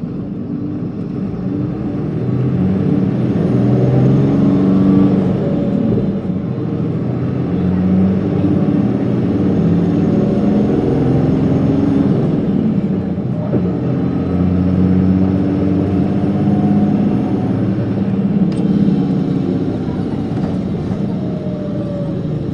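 Isuzu Erga city bus (PKG-LV234L2) heard from inside the cabin under way, its diesel engine running. A high whine rises, holds and falls away three times as the engine note climbs and drops.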